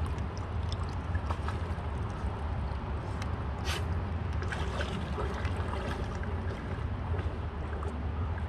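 Shallow river water trickling over stones under a steady low rumble, with small splashes and drips as a puppy wades and puts her face into the water; one sharper splash about four seconds in.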